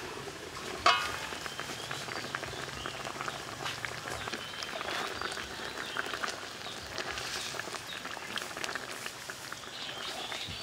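A metal wok lid clanks once about a second in, ringing briefly. Then broth simmers in the wok, with many small pops and clicks, while a metal ladle stirs it and scrapes against the wok.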